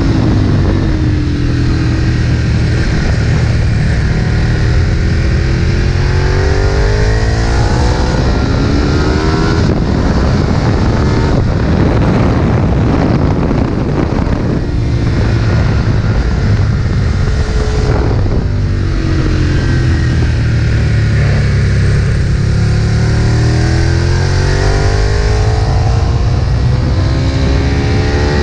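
Ducati 1098's 90-degree V-twin engine at full throttle on track, its pitch climbing in long pulls through the gears with short breaks at each gear change. A loud rush of air and road noise runs under it.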